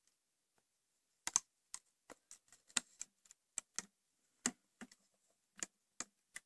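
Crochet hook clicking and tapping against the plastic pegs of a Rainbow Loom as rubber bands are hooked off: sharp, irregular small clicks starting about a second in.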